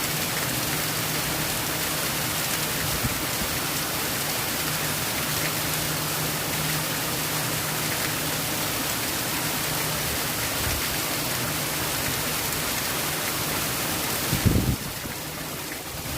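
Steady heavy rain falling, an even hiss of drops. Near the end there is a brief low thump, and the rain is a little quieter after it.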